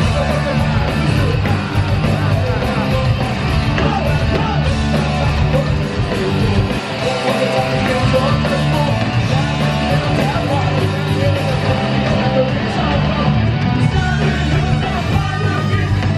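Live punk rock band playing loud: electric guitars, bass and drums with a singer on the microphone, heard from amid the crowd. The low end drops away for a moment about seven seconds in, then the full band comes back in.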